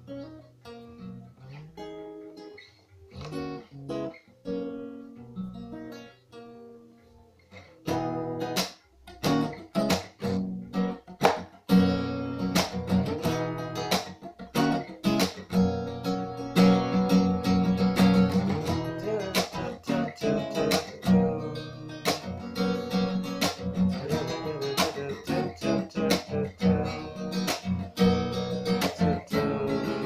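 Acoustic guitar playing an instrumental passage: quiet, sparse picked notes at first, then about eight seconds in it gets louder and fuller, with rhythmic strumming and sharp percussive strokes.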